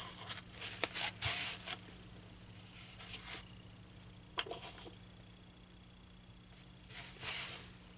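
Fabric rustling and scraping as it is handled over a styrofoam board and pins are pushed through it into the foam: several short bursts with quiet pauses between them, over a faint steady hum.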